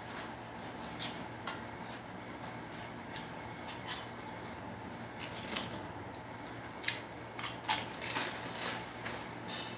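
Eating noises: scattered short clicks, smacks and rustles as chicken is picked apart by hand from an aluminium foil tray and eaten, busiest in the second half, over a low steady hum. Fingers are licked near the end.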